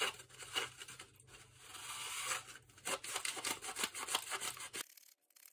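Plastic film-developing reel twisted back and forth by hand, its two halves ratcheting with rapid clicks and rasps as 120 roll film feeds into the spiral. The sound stops abruptly near the end.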